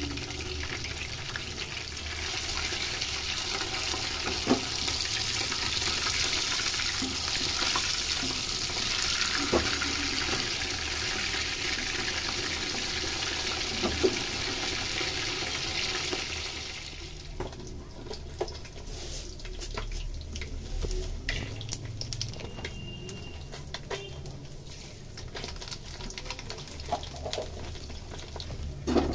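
Fish pieces shallow-frying in hot oil in a kadai, a steady dense sizzle, with a few sharp clinks of a metal slotted ladle against the pan as they are turned. About two-thirds of the way in the sizzle drops away suddenly, leaving fainter scattered crackles and clicks.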